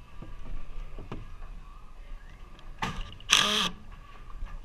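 DeWalt cordless impact driver running in a short burst about three seconds in, hammering a screw into wooden framing.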